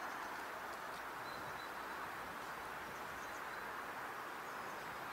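Steady rushing outdoor noise with a few faint bird chirps.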